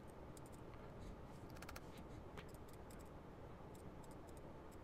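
Faint, irregular clicks of a computer mouse over low room hum, some in quick clusters.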